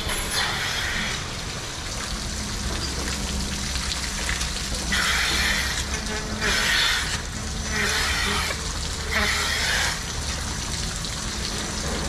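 Rotary dairy milking parlour: the milking machinery runs with a steady low hum, and short bursts of hissing come several times as vacuum teat cups are put onto the cows' teats.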